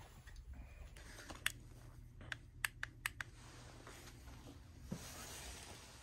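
A handful of light, sharp clicks and taps in a quick irregular run, over a faint low background hum.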